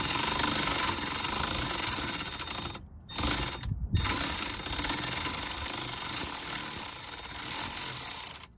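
Milwaukee cordless electric ratchet spinning a Phillips bit on an extension, backing out a screw: a steady motor whine with fast ratcheting chatter. It stops briefly twice, about three and four seconds in, then runs on and stops near the end.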